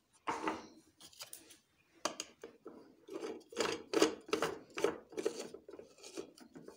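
Crisp fried onion flakes rustling and scraping as they are handled into a plastic spice grinder's cup. It is a run of short, irregular rasping strokes, thickest and loudest around the middle; the grinder's motor is not running.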